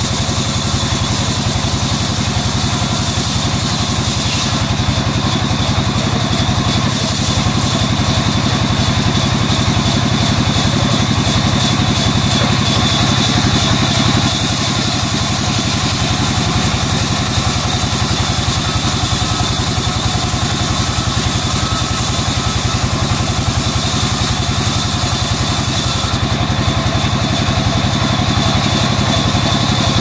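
Engine-driven sawmill band saw running steadily while a log on the carriage is pushed through the blade.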